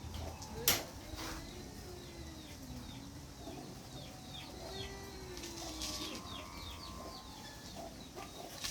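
Small birds chirping in rapid runs of short, falling calls, with a sharp click about a second in.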